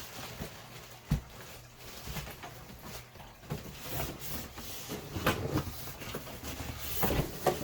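Cardboard box and foam packing scraping, rustling and knocking as a PC is worked out of its shipping box, with a sharp knock about a second in.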